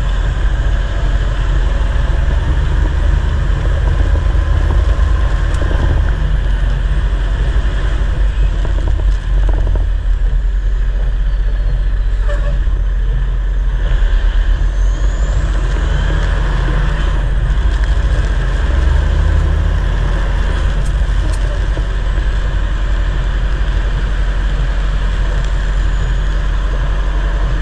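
Semi-truck's diesel engine running with a steady low rumble, mixed with tyre noise from the wet road, heard from inside the cab while driving.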